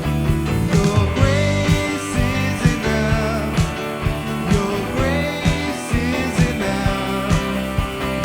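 Worship band music with a steady drum beat, a bass line and a wavering sung melody.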